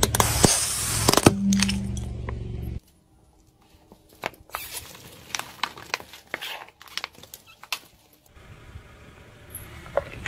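Car tyre rolling over and crushing small objects. First a plastic lighter, with a low rumble and sharp cracks for about three seconds. After a sudden drop in level comes a run of scattered sharp clicks and snaps as a bottle of water beads is crushed. Near the end the low rumble returns, with a crack from a stack of paper cups.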